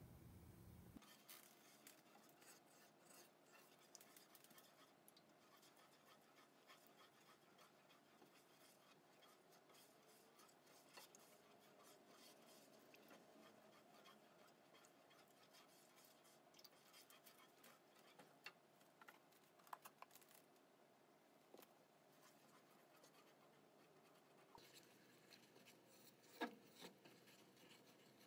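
Near silence, with faint scraping and light ticks of a silicone spatula stirring a syrupy sauce in a saucepan. There is one sharper knock near the end.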